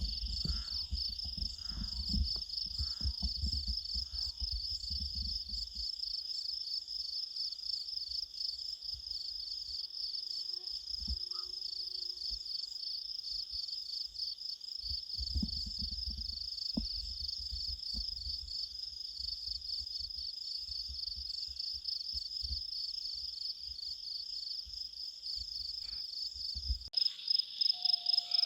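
A summer-night chorus of crickets keeps up a steady, finely pulsing high trill. Wind rumbles on the microphone and drops away near the end.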